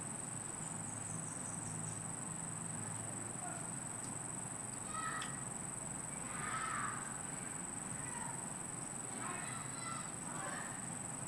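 Insects' steady high-pitched drone, with faint short chirping calls about halfway through and again near the end.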